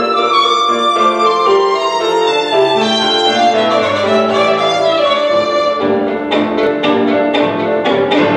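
Classical violin music played back through a Bose Acoustimass 5 speaker system, measuring about 80 dB on a sound level meter at the listening position. Long held notes give way, about six seconds in, to short, sharply struck notes.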